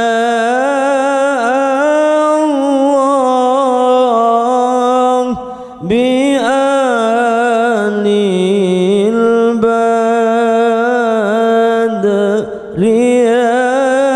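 A man's voice melodically chanting a Qur'an recitation (qira'ah) in long, held phrases with wavering, ornamented pitch. The voice breaks briefly for breath twice, about five and a half seconds in and again about twelve and a half seconds in.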